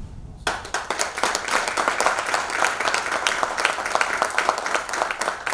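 Audience applauding: a dense run of many hand claps that starts about half a second in.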